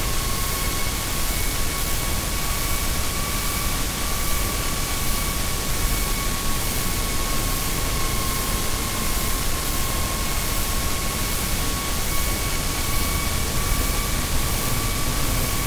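Steady hiss of static with a constant high whistling tone and a fainter tone above it, unchanging throughout.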